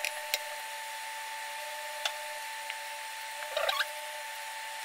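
A silicone spatula scraping and tapping dry ground spices around a nonstick frying pan: a few light taps, then a short scrape about three and a half seconds in. A steady faint whine and hiss run underneath.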